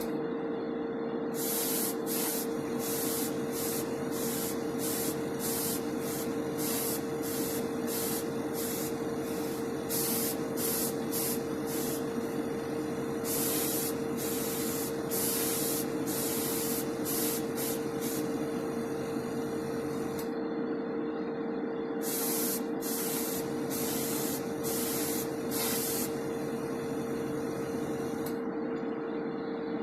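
Paint spray gun hissing in many short trigger bursts, with a few longer passes, over the steady hum of a small hobby compressor that the owner reckons is about worn out.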